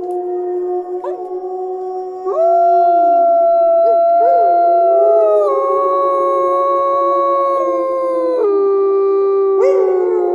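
Wolf howling: long, held howls at several different pitches overlap, stepping up about two seconds in and dropping near the end.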